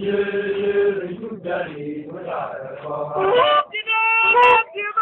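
Men's voices chanting in song, with held notes that step in pitch in the second half. A short sharp click comes near the end.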